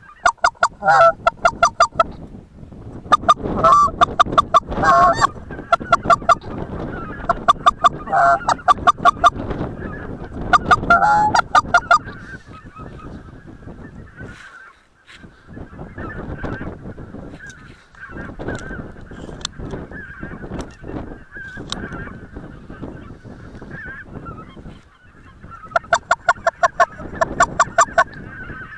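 Goose honking in loud clusters of rapid calls, several bursts in the first dozen seconds and again near the end, with fainter continuous honking of more geese in between.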